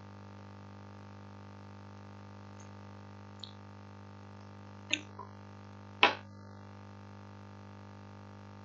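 A steady low electrical hum with a few short clicks and knocks from the computer desk, the loudest about six seconds in.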